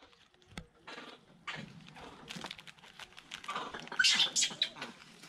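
Crinkling and crackling of a small plastic snack packet being handled and opened: a run of irregular crackles that grows louder about four seconds in.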